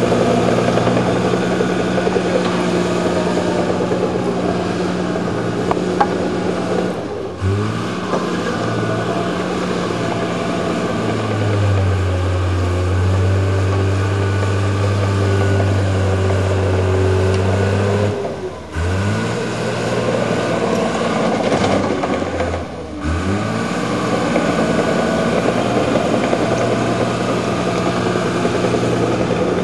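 Diesel engine of a crawler bulldozer running under load, its note dipping briefly and picking up again three times, with a heavier low drone for several seconds in the middle.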